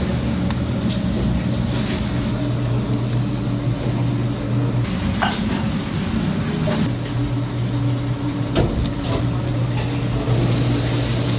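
Steady low mechanical hum of kitchen machinery, with a few light clicks and taps as gloved hands work a bamboo rolling mat.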